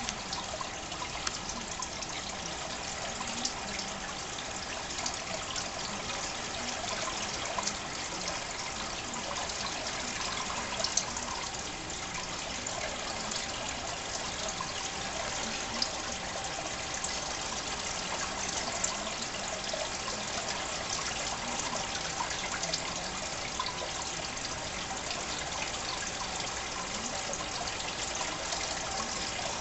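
Steady trickling and splashing of water in a large fish tank, with fine crackles throughout, as from the aquarium's circulation.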